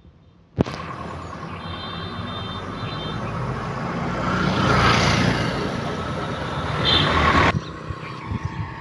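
Road vehicle passing close by, its noise swelling to a peak around the middle and then cutting off abruptly near the end.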